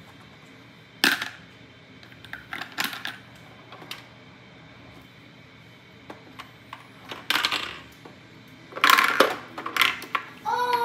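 Toy coins clicking and clattering as they are dropped into and handled at a toy cash register: a few separate sharp clicks, with a quick cluster near the end.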